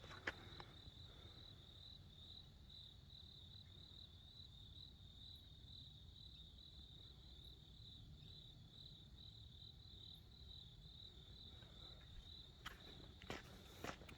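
Faint, steady insect chirping: a continuous high, rapidly pulsing trill. A few footsteps sound just after the start and again near the end.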